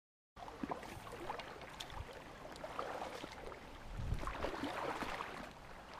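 Dead silence for a moment, then the water of a fast, shallow trout stream rippling and sloshing, with scattered small clicks and a few low thumps about two and four seconds in.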